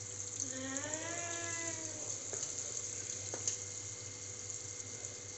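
Moong dal vada batter sizzling as it deep-fries in hot oil, a steady crackling hiss. About half a second in, one drawn-out pitched call rises and falls for about a second and a half. A few light clicks follow a little later.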